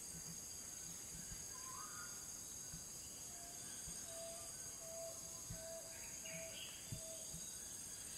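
Faint natural ambience: a steady high insect drone with scattered bird calls, including a run of short, evenly spaced notes of one pitch, about two a second, through the middle, and a few faint low knocks.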